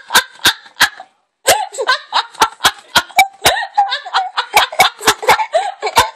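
Baby giggling and laughing in rapid bursts, mixed with sharp spitting pops at about three or four a second as she sprays her drink. The sound drops out briefly about a second in.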